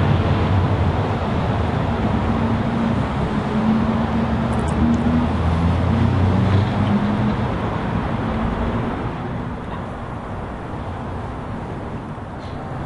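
Steady noise of a nearby motor vehicle engine and road traffic, with a low engine hum that fades about eight seconds in.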